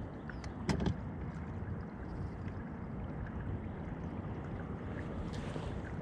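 Steady low rush of wind and water around a small fishing boat, with one sharp knock a little under a second in.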